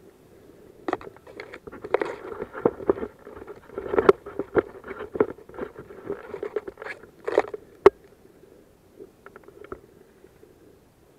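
Rustling and crunching of dry grass, pine litter and twigs close to the microphone, a dense run of irregular crackles from about a second in until about eight seconds, with one sharp snap near the end of that run, then only a few faint crackles.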